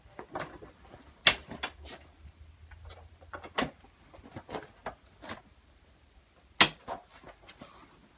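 Sharp snaps of high CFM pole corner clips being clipped onto a grow tent's frame poles. There are two loud snaps, about a second in and near six and a half seconds, with lighter knocks and handling clicks between them.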